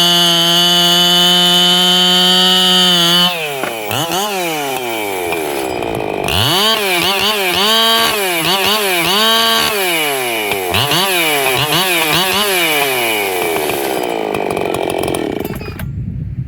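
Freshly ported Echo CS-7310P two-stroke chainsaw held wide open at a steady high pitch for about three seconds, then dropping and revved up and down in a series of quick throttle blips. The engine note falls away just before the end.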